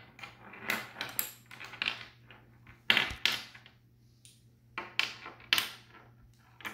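Magnetic building sticks clicking onto metal connector balls and being set down on a wooden tabletop: a string of sharp clicks and light rattles, the loudest about three seconds in.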